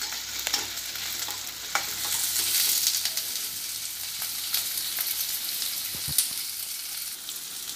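Chopped onions sizzling steadily as they sauté in butter and oil in a stainless steel kadai, being cooked down until soft, with a few short sharp ticks.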